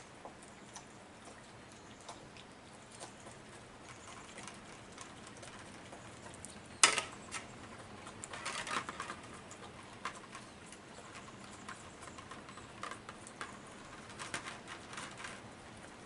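Deer close by, feeding and stepping: faint scattered clicks and crunches. One sharp knock comes about seven seconds in, with a cluster of clicks a second or two after it and more near the end.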